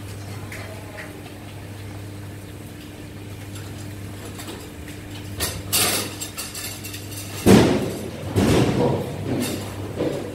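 Cattle knocking against a metal feed barrier: loud knocks and clatter about six seconds in and several more in the last three seconds, over a steady low hum that stops about seven and a half seconds in.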